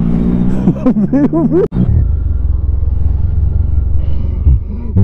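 Motorcycle engine running while riding in slow traffic, with heavy low wind rumble on the helmet microphone. About a second in there are a few quick rises and falls in pitch.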